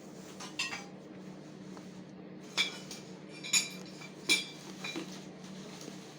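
Metal parts of a chainsaw accessory frame clinking and knocking together as they are handled and set in place: several sharp, ringing metallic clinks, the loudest three in the second half, over a steady low hum.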